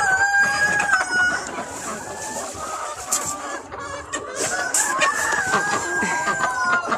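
A flock of chickens clucking, with roosters crowing: one long drawn-out crow at the start and more long crows, overlapping, from about the middle to the end.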